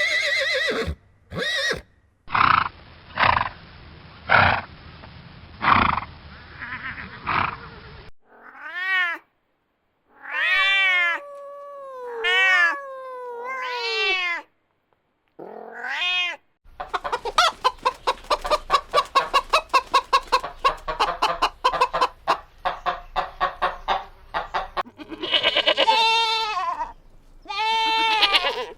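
A run of different farm animal calls cut one after another: short pitched calls that rise and fall, a stretch of six or so evenly spaced pulsing calls, and about eight seconds of a fast, quavering call, like a goat's bleat, near the end.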